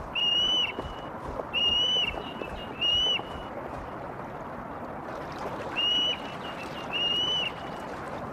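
Osprey calling: five clear whistled notes, each about half a second long, over the steady rush of river water.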